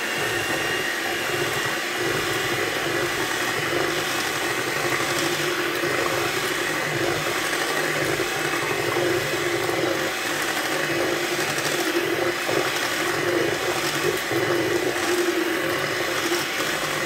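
Electric hand mixer running steadily, its beaters whirring through thin pumpkin pie filling in a stainless steel bowl.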